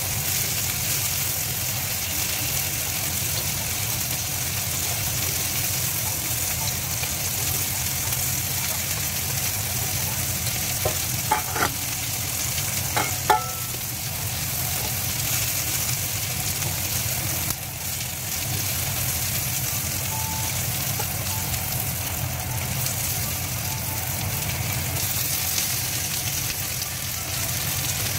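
Food sizzling in hot oil in a pan as a shrimp stir-fry cooks: a steady frying hiss. A few sharp clicks come about halfway through.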